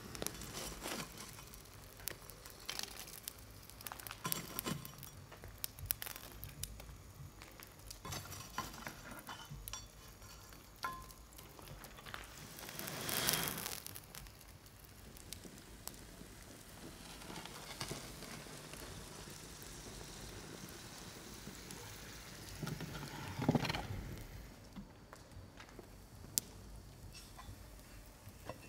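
Cooking and handling sounds: scattered clicks, knocks and clinks of utensils and dishes, with two louder noisy swells about thirteen and twenty-three seconds in.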